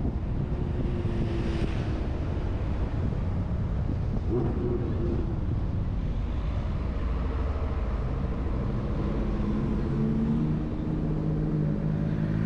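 Car driving on city streets: a steady low rumble of road and engine noise with wind on the microphone, and an engine hum that comes and goes.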